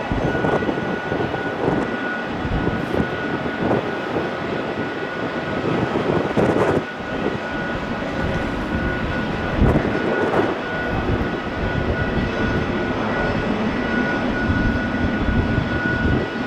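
Airbus A330 freighter's twin jet engines running, a steady dense noise with a thin high whine held throughout. Gusts of wind buffet the microphone underneath it.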